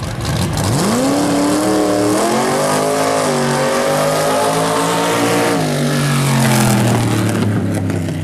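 A 4x4 truck engine revving hard. Its pitch climbs steeply in the first second, holds high with a few small steps, and drops back toward idle about two thirds of the way through.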